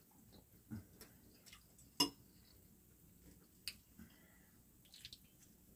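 Quiet eating at a table: a few scattered light clicks of metal forks against a ceramic plate and bowl. The sharpest comes about two seconds in and another a little before four seconds.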